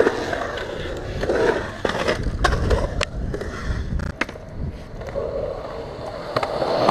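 Skateboard wheels rolling on a concrete skatepark bowl: a steady rumble that swells and fades as the board carves, with scattered sharp clicks and knocks.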